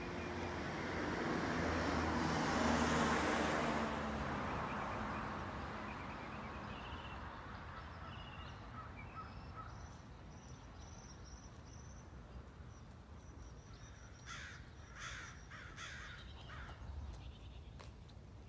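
A car passing on the street swells and fades over the first few seconds. Near the end, a bird calls four times, each call a little under a second apart.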